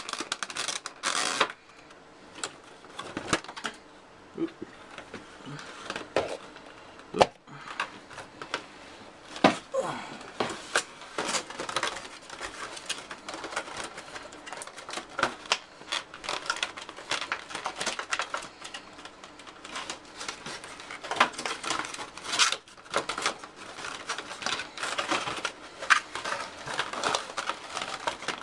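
Hands working cardboard and plastic packaging: irregular crinkling, clicks and scrapes, with one sharp knock about seven seconds in.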